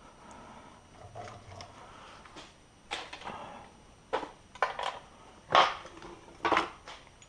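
Several sharp metal clunks and knocks with scraping between them, as the old front suspension strut of a Porsche Cayman 987 is worked loose and pulled out.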